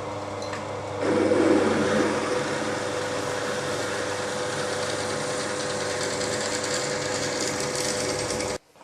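Milling machine spindle running at slow speed, driving a 31/64 in. twist drill into a metal workpiece. The cutting noise grows louder about a second in as the drill bites, runs steadily with a constant hum, then cuts off suddenly near the end.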